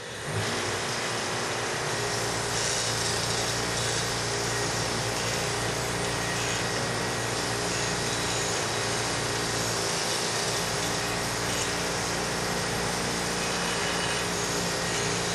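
Bench grinder running with a wire wheel, a rectangular steel tube pressed against the spinning wires: a steady motor hum under a scratching hiss as the wire brush scrubs the steel clean for brazing.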